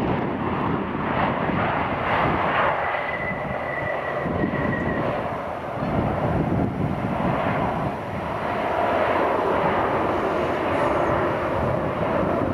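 Jet airliner landing: steady engine and airflow noise, with a faint high whine for a couple of seconds about three seconds in.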